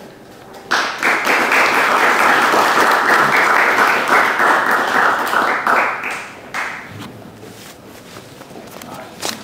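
Audience applauding at the end of a talk, starting about a second in and dying away after about six seconds into a few scattered claps.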